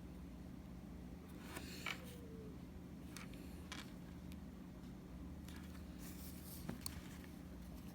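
Microblading hand tool's blade scratching hair strokes into a banana peel: a handful of short, faint, crisp scrapes, over a steady low hum.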